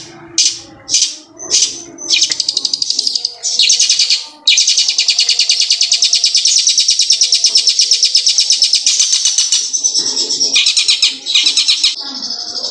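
A caged long-tailed shrike (cendet) singing loudly in its mimicked hill prinia (ciblek gunung) song. It gives a few separate short high notes, then rapid trills, then a long unbroken fast trill lasting about five seconds from about four and a half seconds in, and then further short trills.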